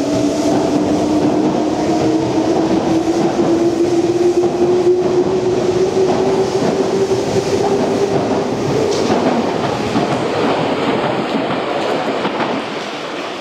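Meitetsu 1030 series electric train accelerating out of a station: the traction motors whine, rising steadily in pitch as it gathers speed, over the noise of its wheels running on the rails. The sound fades near the end as the train moves away.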